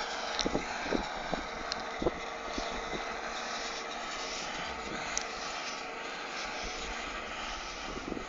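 Case IH Puma CVX 160 tractor running steadily while ploughing, heard from a distance as an even engine hum, with a few sharp knocks in the first few seconds.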